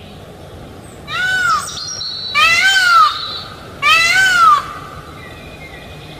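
Peacock giving three loud calls about a second and a half apart, each a short cry that rises then falls in pitch.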